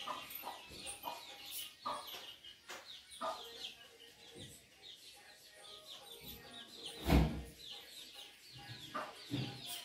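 Chickens clucking and birds chirping in the background, with quick short calls throughout. Scattered light clicks and knocks run through it, with one loud knock about seven seconds in.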